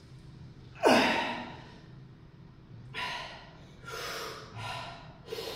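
A man breathing hard from the exertion of a heavy high-rep squat set. There is one loud gasping breath about a second in, then four shorter, quicker breaths.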